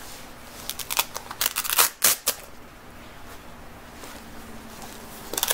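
Velcro hook-and-loop fastening on a waist trainer being pulled apart in a series of short rips, bunched between about one and two and a half seconds in, with a few more near the end.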